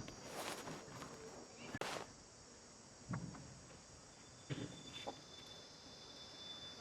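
Steady high insect buzzing, broken by a few short rustles and soft knocks: two sharper ones in the first two seconds, then a few more around the middle.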